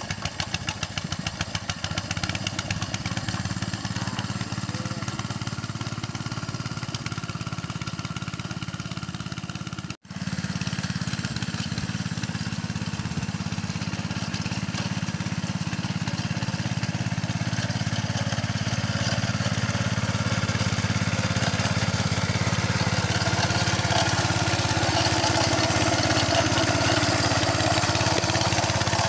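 Old Capung Metal mini rice-field tractor's engine running steadily while plowing a paddy. The sound drops out for a moment about ten seconds in.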